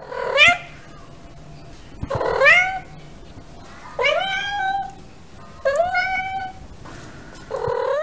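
Domestic cat meowing five times, about every two seconds; each meow rises in pitch and then holds.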